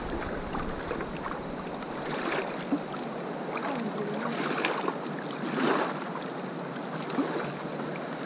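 Steady rush of a fast mountain river running over stones, with a few brief louder swells.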